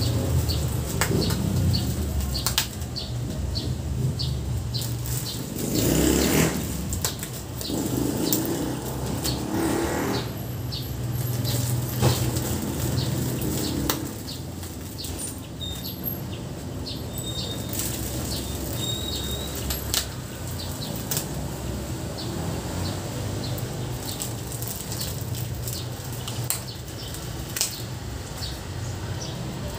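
Thin plastic mushroom fruiting bags crinkling and rustling as they are handled and tied shut with rubber bands, with many small sharp clicks and a couple of louder rustles about 6 and 10 seconds in. A steady low hum runs underneath.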